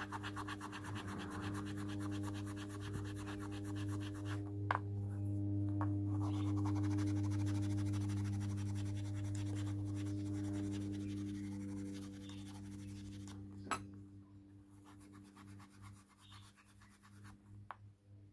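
A small carved bone piece being rubbed and scraped between the fingers, a quiet, continuous scratchy rubbing. Under it runs a steady low hum that drops away about twelve seconds in.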